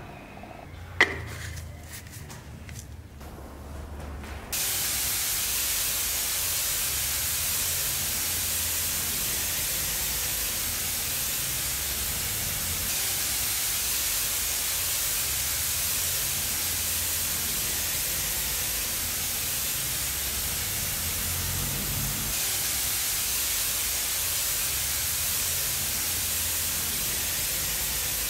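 Compressed-air gravity-feed spray gun spraying paint: a steady hiss that starts about four and a half seconds in and holds level. Before it, a single sharp click about a second in.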